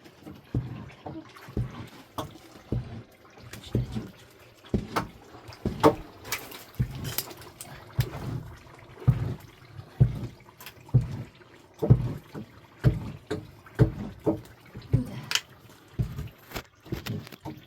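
Water sloshing with irregular knocks, about one or two a second.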